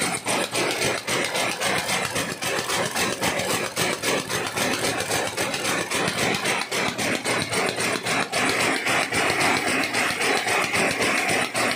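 A Somet SM93 rapier weaving loom, 280 cm wide, running at speed: a rapid, even mechanical clatter, one stroke per pick as the reed beats up.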